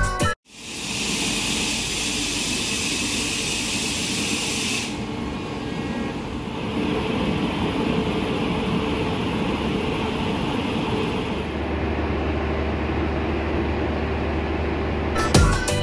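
Electric locomotive and train noise: steady mechanical noise in a few cut-together takes, with a steady low hum coming in for the last few seconds.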